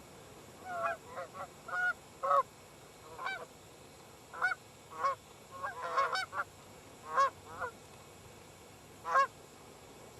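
Geese honking: a dozen or so short, sharp honks, some in quick pairs, coming irregularly through most of the stretch.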